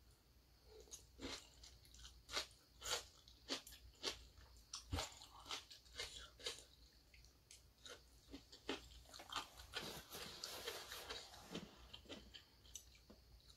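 Close-up eating sounds: a mouthful of noodles and raw vegetables being chewed, with many sharp crunches and clicks.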